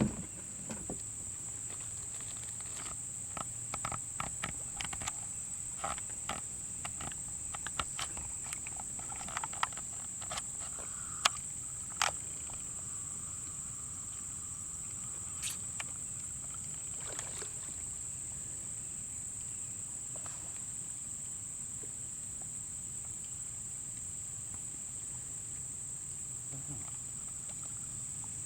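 Steady, high-pitched drone of insects, such as cicadas or crickets, with scattered sharp clicks and knocks during the first dozen seconds.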